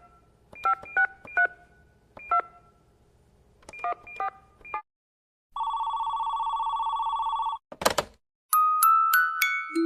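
Telephone sound effects: short keypad beeps in irregular groups, then a steady ringing tone for about two seconds, a click, and at about eight and a half seconds bell-like, glockenspiel-style music notes begin.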